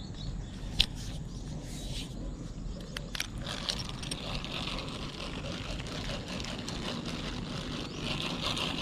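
Okuma spinning reel being cranked to retrieve the line after a cast, with a sharp click about a second in, then a steady high hiss that grows louder near the end.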